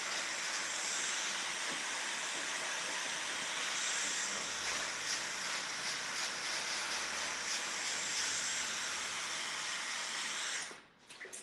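Handheld hair dryer blowing steadily, switched off near the end.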